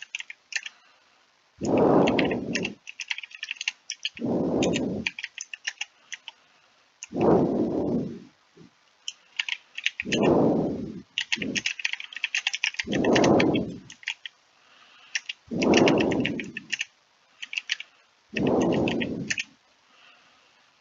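Typing on a computer keyboard: quick runs of keystroke clicks as a line of text is typed. A louder, low whooshing puff comes roughly every three seconds, about a second long each time.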